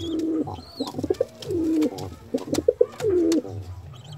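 Fantail pigeon cooing: three coo phrases about a second and a half apart, each a few short notes and then a longer drawn-out note, with several sharp clicks in between.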